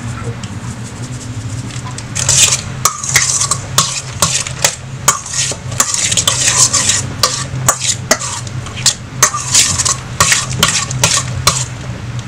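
A metal utensil stirring and mashing soft red beans in a stainless-steel bowl, scraping and clinking against the metal in quick repeated strokes that start about two seconds in.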